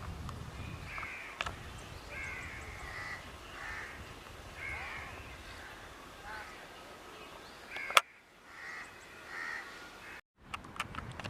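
Crows cawing repeatedly, a string of short calls. A single sharp click about eight seconds in, and the sound cuts out for a moment near the end.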